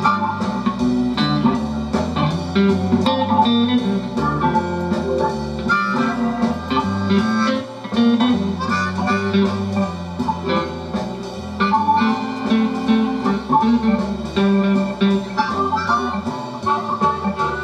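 Recorded blues-style guitar music playing loudly through an early-to-mid-1970s loudspeaker with a Magnavox driver, driven by a JLH 1969 class A amplifier clone under test.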